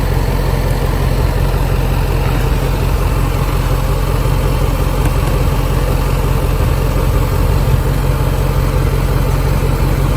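Supercharged 5.0 V8 of a Range Rover Sport idling steadily.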